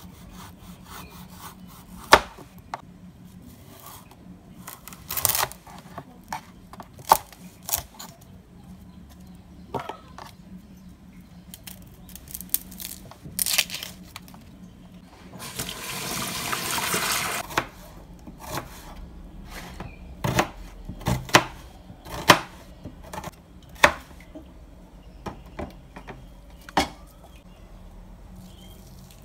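Chef's knife cutting and trimming an onion on a bamboo cutting board: scattered sharp knocks of the blade against the board. A rushing hiss of about two seconds comes around the middle, over a low steady hum.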